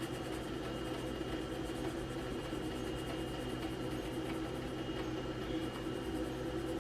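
Steady room tone: a low hum with a faint, thin high whine above it and no distinct events.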